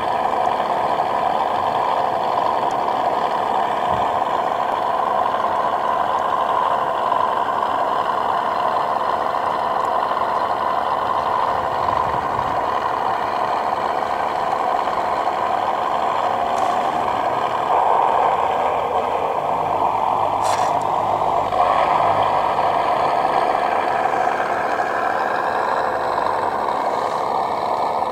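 Steady diesel-style engine idle from the scale RC Land Rover Defender truck's sound unit, played through a small speaker, with a couple of faint clicks in the second half.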